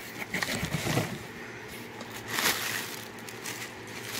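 Plastic packaging and air pillows rustling in a cardboard shipping box as items are handled, in uneven bursts with the loudest rustle about halfway through.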